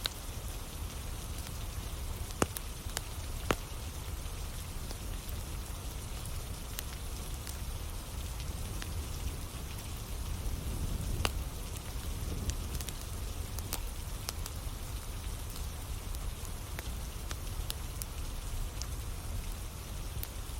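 Steady rain with a wood fire burning, crackling in scattered sharp pops, a few of them louder.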